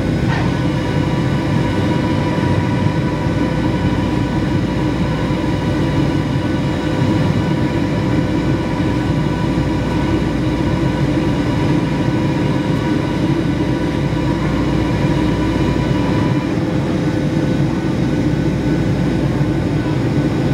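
Steady roar of a Boeing 757-200 jet airliner's cabin during the climb after takeoff: engine and airflow noise heard from a seat over the wing, with a thin steady whine on top. Part of the whine stops about three quarters of the way through.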